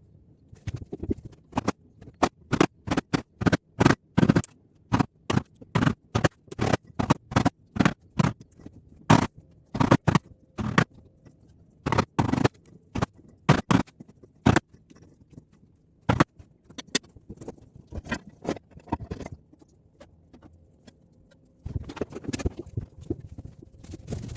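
A rapid, irregular run of sharp knocks, two to four a second, as a hand tool strikes the wooden wall being taken apart; the knocking stops about 19 s in. A few seconds later a rough scraping noise starts near the end.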